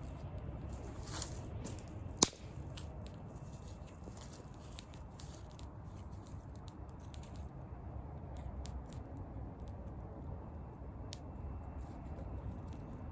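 Campfire burning with scattered crackles and snaps over a low steady rumble, one loud sharp pop about two seconds in.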